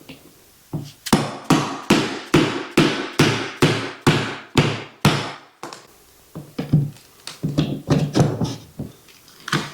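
Hammer blows driving a baseboard removal wedge tool in behind a wooden baseboard: about a dozen steady strikes, roughly two and a half a second, then a few lighter, scattered knocks.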